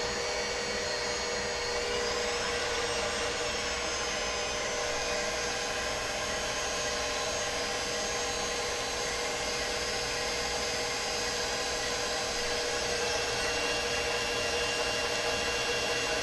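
Electric mixer running steadily at medium speed, whipping heavy cream into whipped cream. Its motor whine rises slightly in pitch a couple of seconds in.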